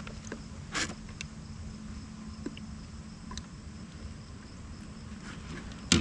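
Handling of a caught fish and a landing net in a kayak: a few light knocks and clicks, with one louder knock near the end, over a faint steady hum.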